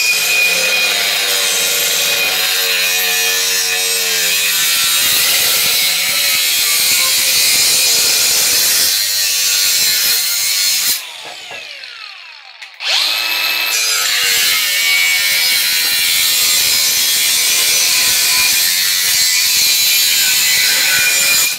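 Milwaukee M18 Fuel cordless 125 mm angle grinder cutting through a 50 by 50 mm steel post with a cutting disc: a steady high whine over a grinding rasp. About halfway it stops for roughly two seconds, the disc winding down, then starts again and cuts until it stops near the end. It keeps its speed under load without bogging down.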